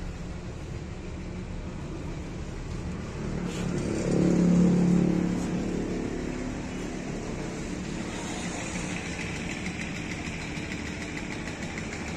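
A motor vehicle's engine, running as a steady low hum, swells louder for a couple of seconds about four seconds in and then fades back.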